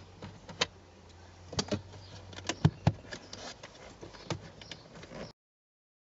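Car interior trim and door-frame seal being handled by hand: a series of sharp plastic clicks and knocks, several close together near the middle. The sound cuts off abruptly a little after five seconds in.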